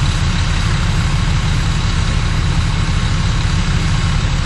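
Heavy truck diesel engines running steadily at idle, a constant low rumble under an even hiss.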